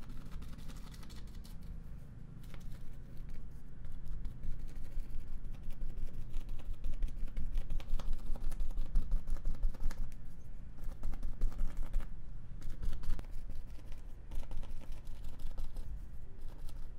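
Thin paintbrush working acrylic paint onto a stretched canvas in quick short strokes, making a dense run of soft taps and scratchy scrapes, busiest in the middle.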